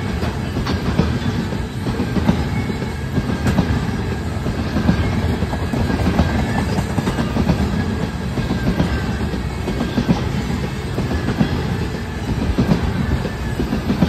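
Freight train of tank cars rolling past close by: a steady rumble of the cars, with their wheels clacking on the rails.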